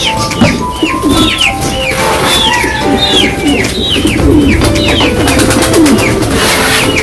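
Pigeons cooing low under a busy chorus of high chirps from small birds, several a second, each falling in pitch.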